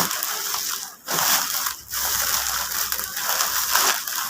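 Plastic bags crinkling and rustling as they are handled and arranged, in several bursts with short pauses.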